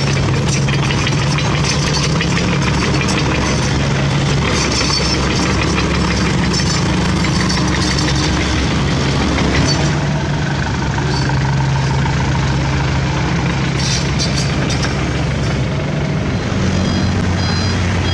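Diesel engine of a CAT mini excavator idling steadily, then a Mitsubishi Fuso Canter dump truck's diesel engine running among road traffic. Near the end, the truck's reversing beeper starts, a steady series of high beeps as it backs up.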